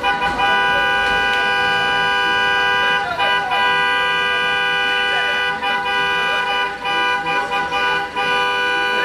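A car horn held down in one long continuous blast, its two tones sounding together, with a few brief dips in level.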